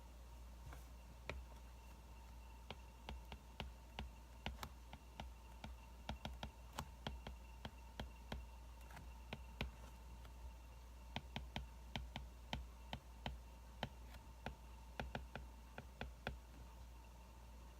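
Wood fire crackling: irregular sharp pops and snaps, some coming in quick clusters, over a faint steady hum.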